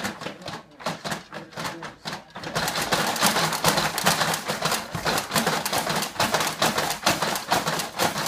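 Plastic clattering and rattling of a baby's stationary activity jumper as the baby bounces in it: a run of short clicks that becomes faster and louder about two and a half seconds in.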